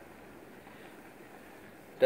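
Faint, steady outdoor background hiss with no distinct events.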